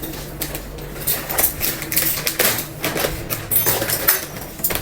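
Quick irregular light clicks and taps, like nuts and utensils being handled in a kitchen as cashews go onto cookie dough, over a faint steady low hum.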